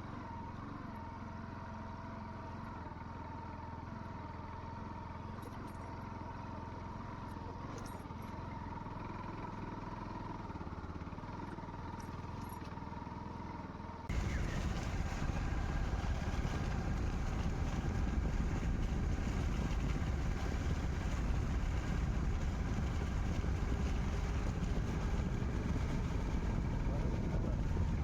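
A motor vehicle running steadily, with a low hum and a thin steady whine. About halfway through the sound changes abruptly to a louder, rougher rushing noise that continues to the end.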